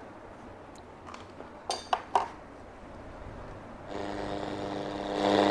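A few sharp clicks from the controls of a National RQ-537 radio cassette recorder, then about four seconds in its radio comes on with hiss and a steady hum, louder near the end. The radio is working.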